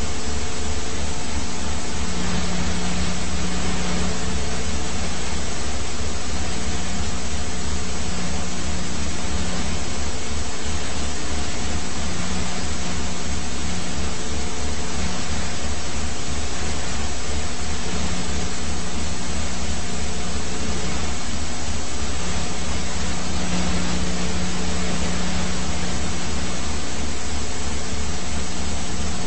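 Steady helicopter cabin noise: the turbine and rotor running, a constant loud rushing with a rapid low pulsing underneath.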